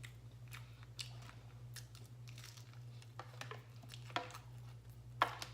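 Close-up chewing of a crunchy tostada: scattered crisp crunches and mouth clicks, the sharpest one near the end, over a faint steady low hum.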